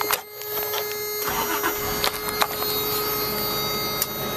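Key-in-ignition reminder buzzer sounding one steady tone. About a second in, the 1991 Toyota pickup's 3.0-litre V6 starts and settles into a low idle under the buzzer.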